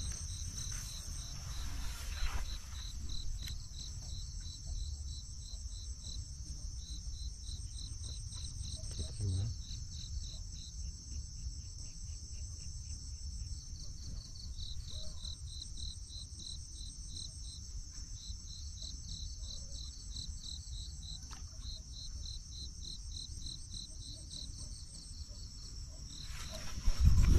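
Insect chorus: a steady high buzz with a pulsed chirp repeating about four times a second, over a low rumble.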